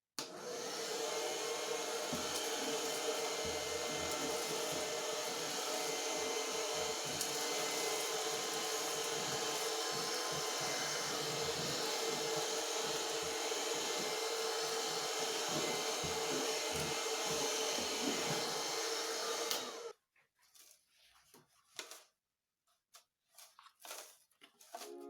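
Homemade vacuum cleaner driven by a 12-volt dryer motor, running steadily with a steady whine over a rushing whir, then cutting off suddenly about 20 seconds in. A few faint knocks follow.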